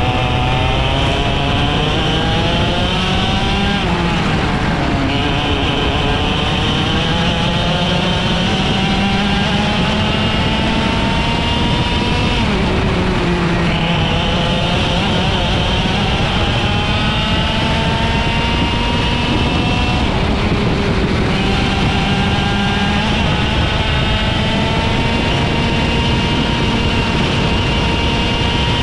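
IAME X30 125cc two-stroke kart engine running at racing speed. Its pitch climbs steadily along each straight, then drops sharply three times as the throttle is lifted for a corner, and climbs again.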